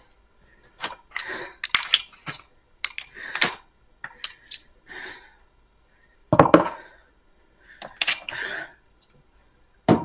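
Irregular rustling, knocking and clattering as a wig is handled and shaken over a black wire wig stand, about a dozen short bursts with the loudest about six seconds in.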